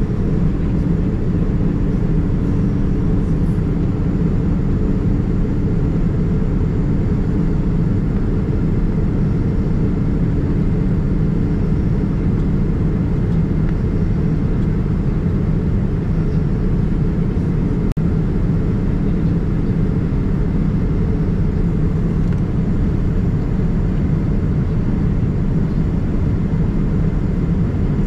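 Steady low rumble of cabin noise inside a Boeing 787-9 Dreamliner: engine and airflow noise heard from a window seat, holding constant throughout.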